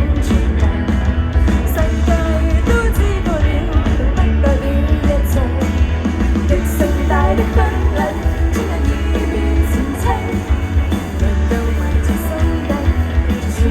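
A live band performing a song with a singer: a sung melody over a heavy, steady bass line and recurring cymbal and drum hits.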